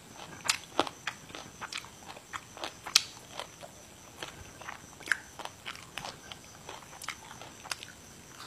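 Close-miked chewing of crisp fresh vegetables, with leafy stems snapping and rustling in the hands. It is a string of short, irregular crunches, the loudest about three seconds in.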